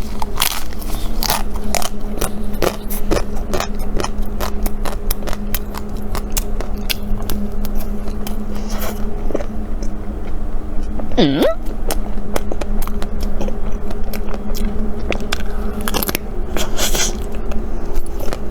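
Close-up crunching and chewing of the crackly chocolate shell of a vanilla Magnum ice cream bar, with many sharp crackles as the coating breaks, over a steady low hum.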